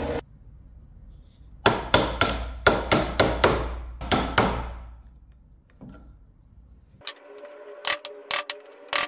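Hammer or mallet striking wood, about nine sharp blows in quick succession, each ringing briefly, followed near the end by a few lighter knocks. A machine's running noise cuts off right at the start.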